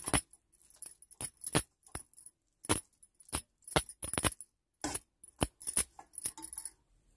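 Perforated stainless steel spoon clinking and scraping against a stainless steel bowl while mixing rice, in irregular metallic clicks about two a second that stop shortly before the end.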